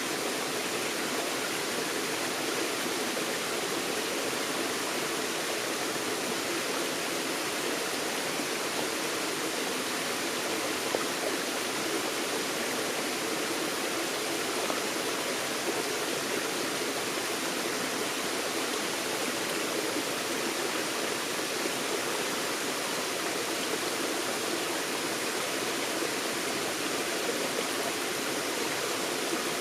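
Forest stream flowing over rocks: a steady, unbroken rush of water.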